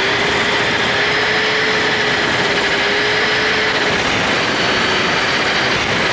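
Handheld power grinder running steadily at speed, grinding off the protruding end of a tube. A constant whine sits over a wide hiss and sags slightly about four seconds in as the tool bears on the work.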